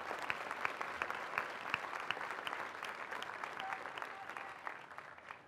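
Large crowd applauding, a dense patter of many hands clapping that dies down near the end.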